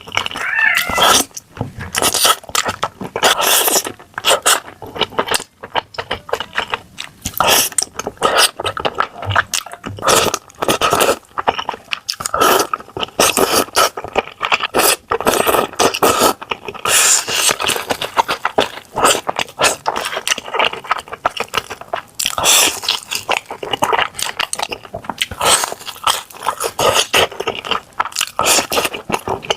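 A person eating: loud chewing and crunching, a dense run of sharp clicks and short wet smacks.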